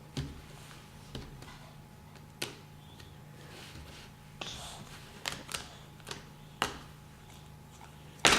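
Scattered light clicks and taps at irregular intervals, about a dozen in all, with one louder knock near the end.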